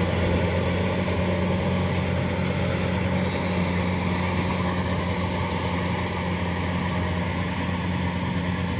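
Kubota DC-105X combine harvester's diesel engine running steadily as the machine harvests rice: a constant low hum, easing off slightly toward the end.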